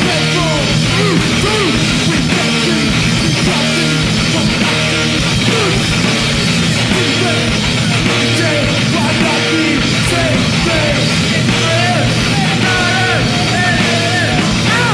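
A punk rock band playing live and loud: distorted electric guitar and drums, with a vocalist shouting into the microphone.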